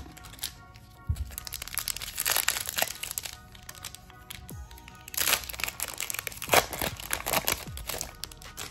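A trading-card booster pack's plastic wrapper being ripped open and handled, crinkling and crackling in two bouts, the first about a second in and the second from about five seconds in.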